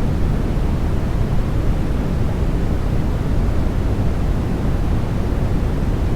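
Continuous white noise for baby sleep: an even, unchanging hiss, heaviest in the low end and thinning out toward the top.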